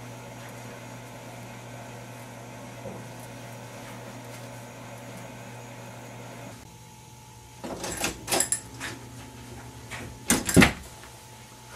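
Steady low hum, then a cluster of sharp knocks and rattles followed near the end by two loud thumps, as a wooden panel door is bumped against.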